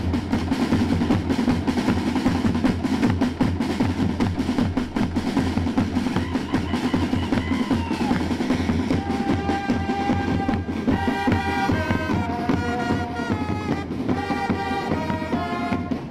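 Marching drum corps of snare drums and bass drum playing a steady cadence; fanfare trumpets come in with a melody about nine seconds in.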